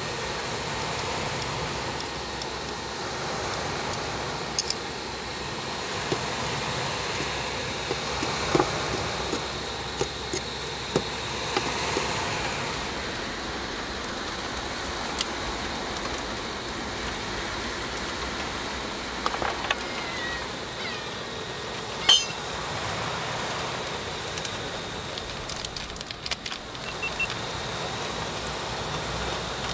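Steady hiss of rain, with scattered light clicks and taps of cooking utensils; a single sharp click about three-quarters of the way through is the loudest sound.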